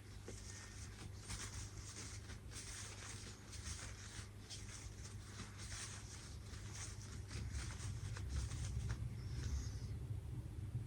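Faint, irregular rustling and scratching noises, many short strokes close together, over a low steady hum.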